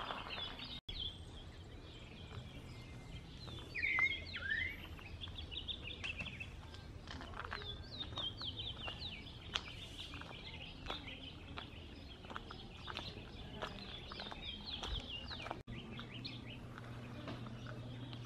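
Birds chirping in the trees, with many short, quick chirps throughout and a couple of louder, falling calls about four seconds in.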